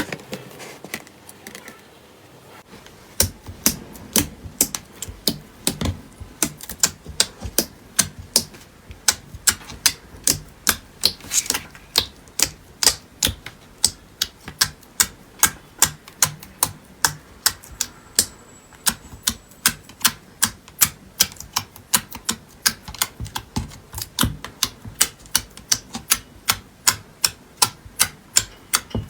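Slime being pressed and poked by hand, giving a steady run of sharp, crisp clicks and pops at about three a second, starting about three seconds in.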